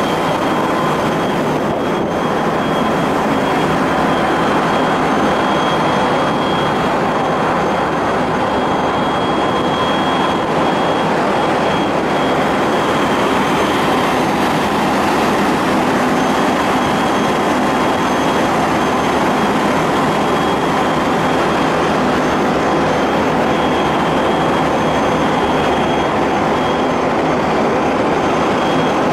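Steady machinery drone of a car ferry's funnel and deck ventilators heard on the open upper deck, a constant noise with a few faint steady whining tones.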